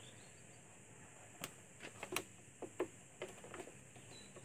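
A string of about ten light, irregular clicks and taps, starting about a second and a half in, as air intake pipes and their plastic fittings are handled and worked loose.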